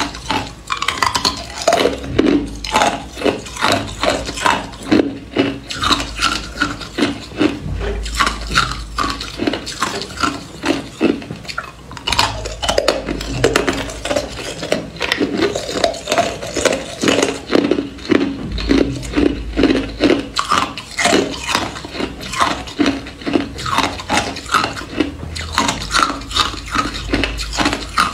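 Hard ice cubes crunched and chewed in the mouth, a dense run of crackling and clicking that never lets up, with ice cubes clinking against each other.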